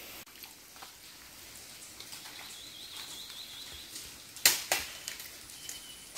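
Water sloshing as a collapsible net fish trap is handled and lowered into a shallow stream, with two sharp splashes close together about four and a half seconds in. A bird trills briefly before them.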